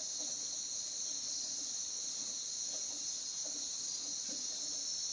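Night chorus of crickets and other insects: a steady, high-pitched shrill.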